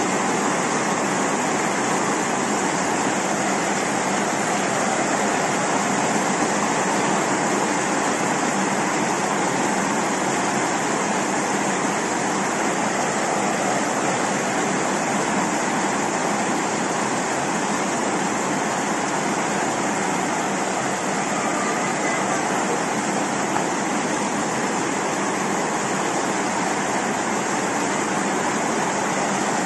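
Steady rush of running or falling water, even and unchanging throughout.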